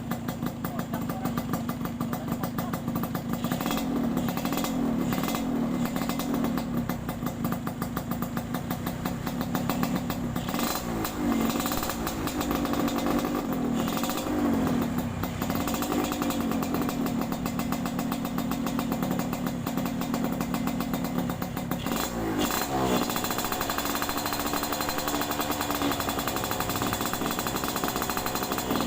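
Yamaha RX-King's two-stroke single-cylinder engine running through a Kupang-style aftermarket exhaust, with a rapid staccato exhaust pulse. It is blipped several times, the revs rising and falling around 4, 11, 14 and 22 seconds in.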